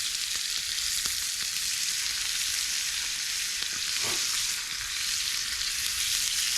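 Bacon frying in a pan: a steady sizzle with small scattered crackles.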